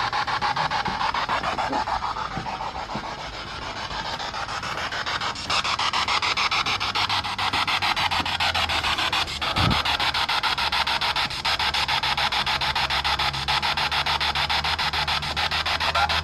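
Spirit box radio scanning rapidly through stations, giving a steady, choppy static hiss that pulses many times a second.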